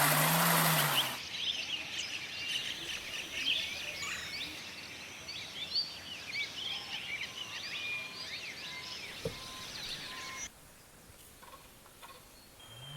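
Many birds chirping at once, with quick rising and falling calls overlapping one another. A loud rush of noise fills the first second, and the chorus drops away suddenly near the end.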